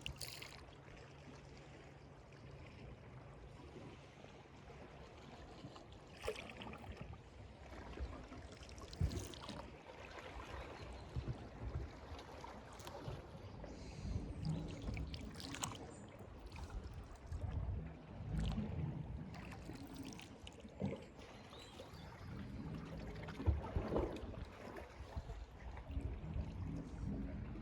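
Sea water lapping and splashing in irregular swells, with a low rumble that rises and falls every few seconds and brief splashes throughout.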